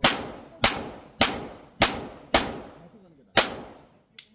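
Pistol fired six times in quick succession, five shots about half a second apart and a sixth after a slightly longer pause, each shot echoing briefly off the range walls.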